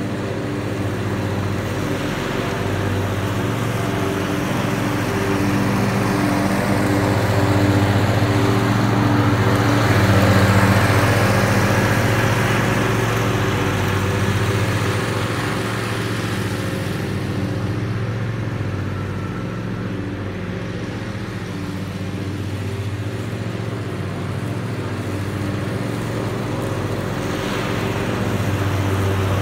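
Zero-turn riding mower's engine running steadily while mowing, growing louder as the mower passes close about a third of the way in, easing off, then coming close again near the end.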